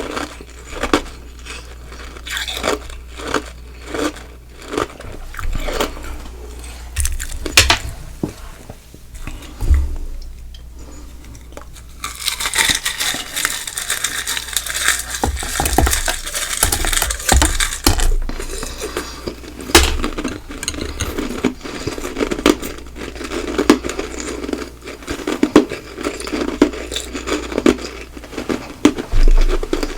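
Ice being crunched and chewed close to the microphone: many sharp, separate crunches, then a dense crackling stretch for several seconds about twelve seconds in, then quick, steady chewing.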